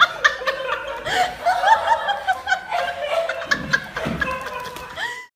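A person laughing in a quick run of short, rising-and-falling bursts, with background music under it. The sound cuts off abruptly at the end.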